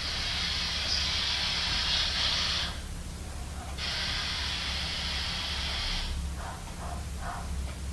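Spirit box radio sweep giving out a steady hiss of static. It cuts out for about a second near the middle, comes back, and dies away about six seconds in, leaving a few faint brief sounds over a low hum.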